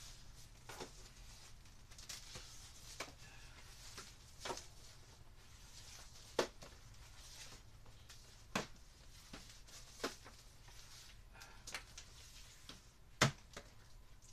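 Handling and coiling an electrical extension cord: scattered light clicks and knocks, roughly one every second or two, with the sharpest near the middle and near the end, over a low steady hum.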